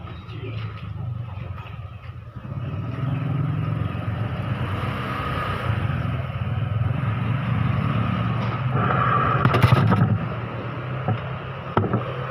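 A motor or engine running steadily with a low hum, growing louder from about two seconds in and easing off near the end, with a short sharp noise near its loudest point.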